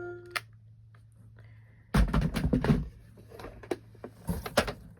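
A short electronic beep, then handling noises: a cluster of knocks and rustling about two seconds in, with a few more knocks later.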